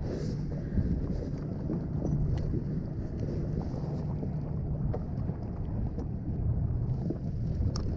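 Wind buffeting the camera microphone over water lapping against a kayak's hull, with a few faint taps.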